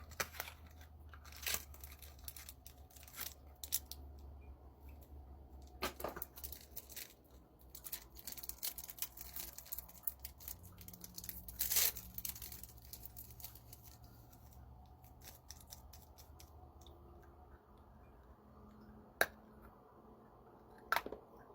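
Packaging of a pack of matcha candy cigarettes being torn open and handled: scattered sharp clicks, rustling and tearing, busiest in the middle.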